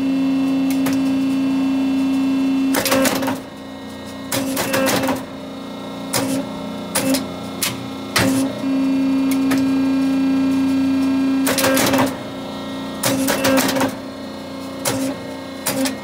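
Hydraulic gutter elbow crimping machine cycling. A loud steady hum runs for about the first three seconds and again for about three seconds from the middle on. Between and around these stretches come repeated sharp metallic clacks and clatter from the crimping mechanism.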